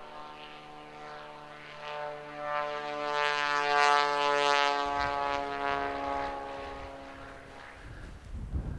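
Single-engine floatplane's propeller engine running at full power as it takes off from the water. It grows louder to a peak about four seconds in, then fades away.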